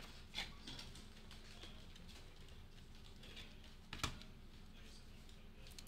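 A few faint, light clicks and taps, with two sharper ones about half a second in and about four seconds in.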